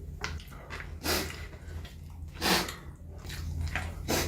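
A man sniffling through his nose: three short sniffs about a second and a half apart.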